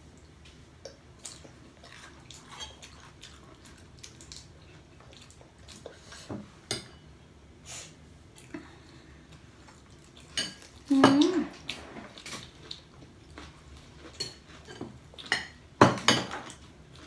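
Forks and spoons clinking and scraping on plates while eating, in scattered light clicks, with louder clatter of dishes about eleven seconds in and again near the end.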